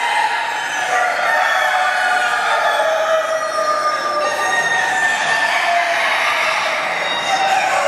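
Many roosters crowing at once, their long calls overlapping into a continuous din, with hens clucking among them.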